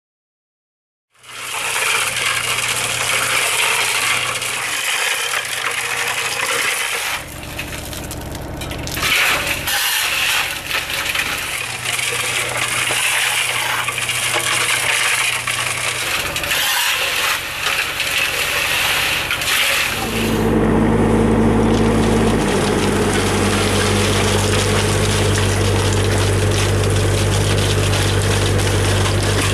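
Cement mixer running, starting about a second in with a dense rattling clatter of material tumbling in the turning drum. About two-thirds of the way through, a steady low engine drone takes over.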